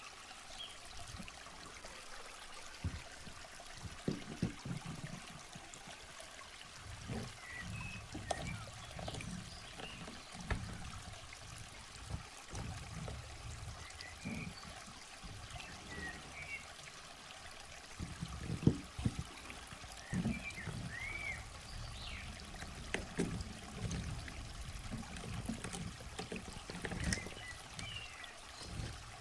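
Gel water beads being scooped and stirred in a plastic bin with hands and a toy net: an irregular pattering and clicking as the beads slide and spill, like a trickle of pouring water, with occasional knocks against the bin.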